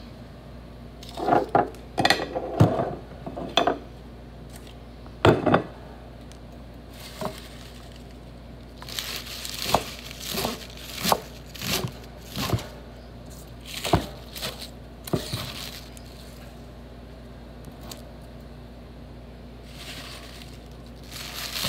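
Kitchen knife cutting fresh spinach on a wooden cutting board: irregular knocks of the blade on the board, loudest in the first few seconds, with crinkling rustles of the leaves being handled.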